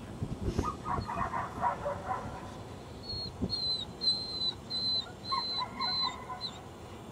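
Dog whining: a run of short, high-pitched whines, about two a second, through the second half.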